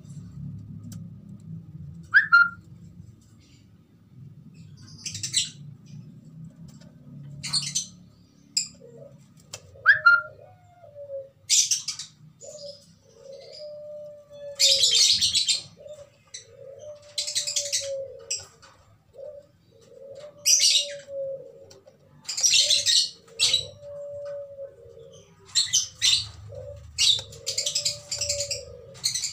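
Birds calling: from about nine seconds in, a low coo repeats roughly every second and a half, among frequent bursts of high chirping.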